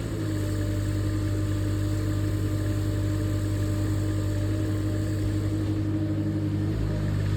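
Engine of a 2-tonne LiuGong mini excavator running steadily, with a low, even hum.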